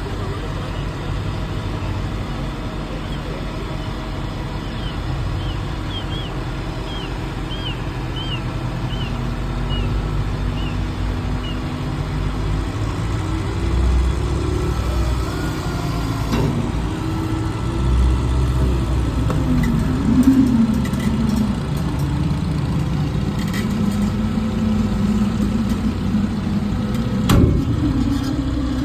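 An engine idling steadily, a low continuous rumble, with a sharp knock near the end.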